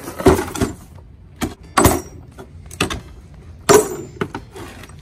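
A bearing puller kit in a hard plastic carry case being handled on a workbench: several sharp knocks and clicks, the loudest about two seconds in, some with a short metallic ring.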